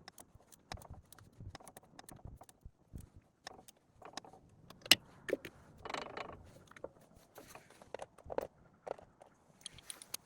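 Scattered clinks, knocks and scrapes of hand tools and metal parts during engine work, with one sharp click about five seconds in and a brief scrape a second later.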